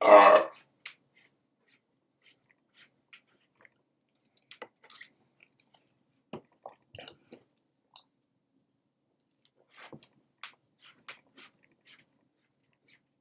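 A short loud burst of noise right at the start, then faint scattered clicks and crackles of a person eating, chewing and handling food.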